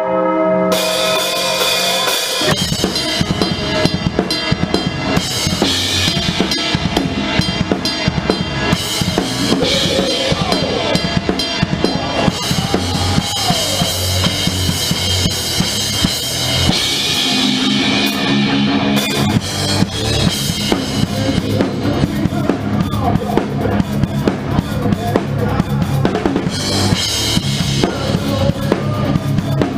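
Heavy metal band playing live, with the drum kit loud and up front: kick drum and snare hits over electric guitars and bass. A held, ringing intro tone gives way to the full band about two and a half seconds in.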